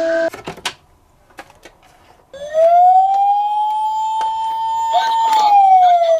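An emergency-vehicle siren wailing. It starts about two seconds in, after a few light clicks, rises slowly, holds high, then slides back down near the end.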